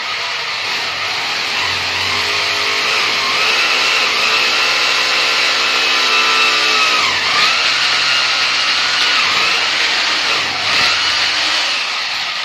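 Corded electric drill boring into a glazed ceramic wall tile, running continuously, its motor whine dipping in pitch twice as the bit bears into the tile.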